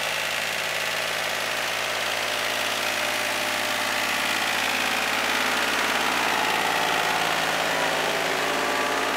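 Kubota compact tractor's diesel engine running steadily as the tractor moves slowly along, an even drone that does not change pitch.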